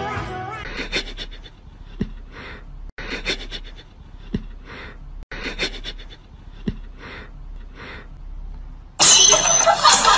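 A cat sniffing, in short breathy bursts that come in small groups every couple of seconds, with a few faint clicks between them. Near the end a sudden, much louder burst of noisy sound cuts in.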